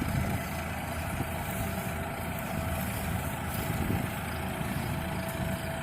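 Farm tractor engine running steadily, a low rumble with a faint steady whine above it.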